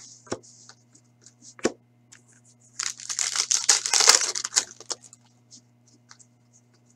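Foil wrapper of a 2015-16 Upper Deck Series 2 hockey card pack being torn open and crumpled in the hands, a dense crackling that peaks about three to five seconds in. It follows a few light clicks of cards being handled.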